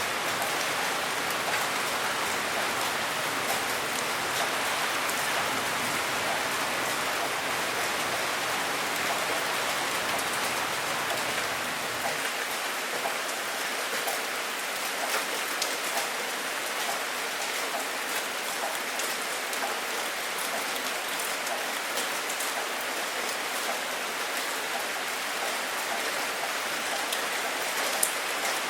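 Steady rain: a dense, even hiss of rainfall with many small drop ticks. A faint low rumble underneath drops away a little before halfway through.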